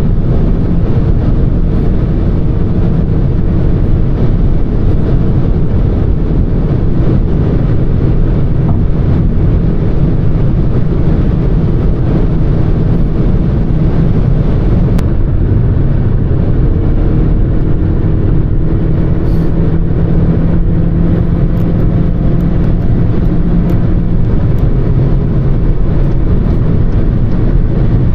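Interior of a CUPRA Formentor with a 2.0-litre turbocharged TSI engine cruising at Autobahn speed: steady tyre roar and wind noise over a low engine drone. Partway through, the engine tone rises slowly.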